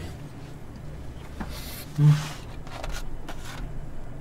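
Soft scrapes and rustles at a table. About two seconds in there is one brief, low hummed voice sound, the loudest moment.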